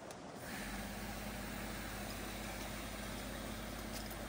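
A steady mechanical hum with a constant low tone and a deep rumble underneath, like an engine idling, setting in about half a second in.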